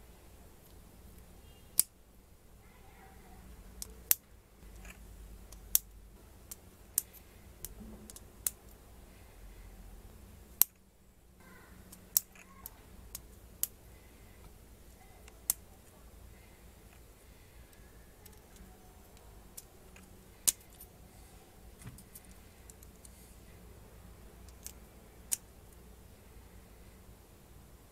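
LEGO Technic plastic pins and connectors being handled and pressed together by hand, giving sharp, separate plastic clicks at irregular intervals, about a dozen in all.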